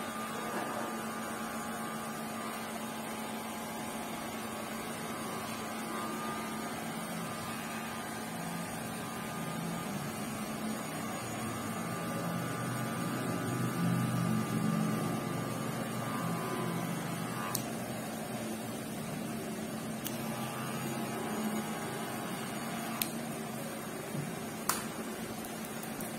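Electric hair clippers running with a steady buzzing hum as they cut close around the ear. There are a few sharp clicks in the last several seconds.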